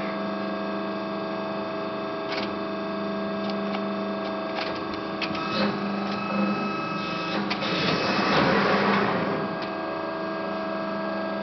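Hydraulic CNC press brake running with a steady hum, with scattered light clicks. About seven seconds in, a louder rushing noise rises for about two seconds as the ram presses down and bends the sheet-metal strip over the die.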